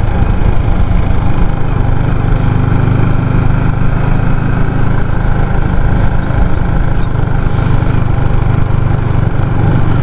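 Motorcycle running steadily while being ridden.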